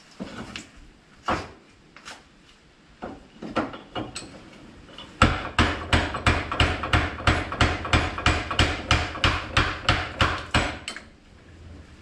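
Hammer striking metal, knocking apart two seized power-steering shafts after the outer one has been heated to expand it. A few scattered blows come first, then a fast, even run of about four strikes a second for five or six seconds.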